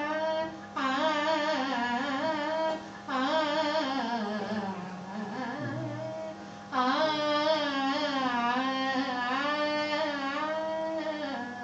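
A woman sings a Hindustani vocal demonstration in three phrases, in the soft Delhi gharana style. Her notes glide smoothly into one another with no steps between them, including a long downward slide in the middle phrase. A steady hum runs underneath.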